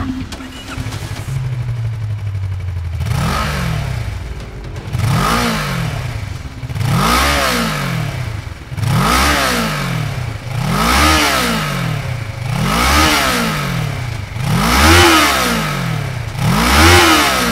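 Kawasaki ER-6n's 649 cc liquid-cooled parallel-twin engine through its stock exhaust, idling and then revved by hand while stationary. From about three seconds in come about eight throttle blips, one every two seconds, each rising in pitch and falling back to idle.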